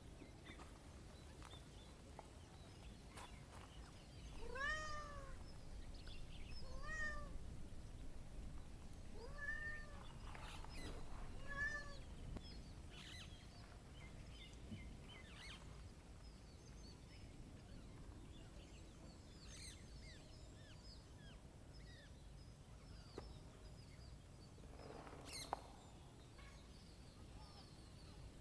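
A cat meowing four times in the first half, short rising-then-falling meows, over faint bird chirping.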